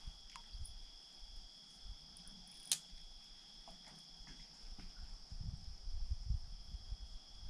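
Night insects, likely crickets, trilling steadily in two high pitches. There is a single sharp click a little under three seconds in and some low rumbling knocks near the end.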